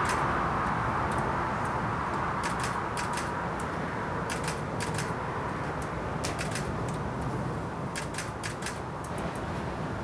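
Steady low background rumble with scattered light clicks, often in quick pairs or small clusters, and a hiss that fades away over the first couple of seconds.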